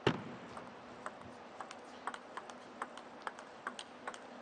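Table tennis rally: the plastic ball ticking sharply off the paddles and the table in a quick back-and-forth. The first hit is the loudest.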